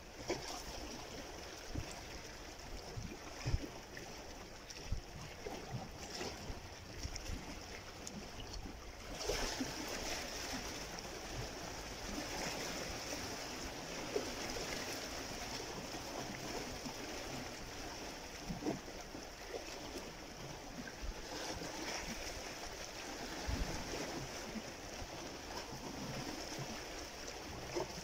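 Sea water washing steadily against shoreline rocks, with a few small splashes and knocks.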